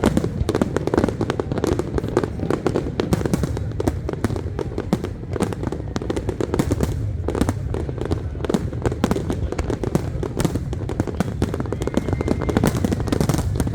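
Fireworks display: a dense, unbroken barrage of bangs and crackling over a low rumble.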